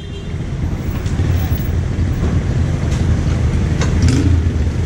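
Busy street traffic: cars, motorcycles and an auto-rickshaw running close by as a steady low rumble, with a few short clicks through it.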